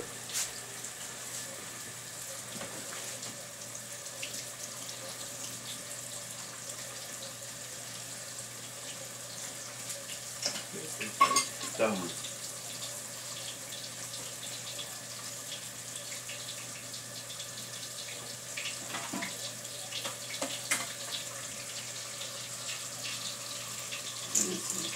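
Cornmeal-coated crappie fillets frying in hot grease in a skillet: a steady sizzle, with a few short clatters of kitchen utensils about halfway through.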